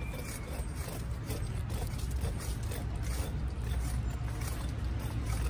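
A small knife cutting into a pineapple, gouging the eyes out in spiral grooves: a quick irregular series of crisp little cuts and scrapes through the rind. Under it runs a steady low rumble.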